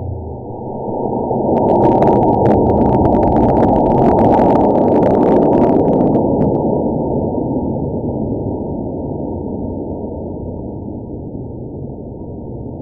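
Model rocket motor launching: a loud, muffled rushing noise that swells about a second in, crackles at its loudest for a few seconds, then slowly fades away.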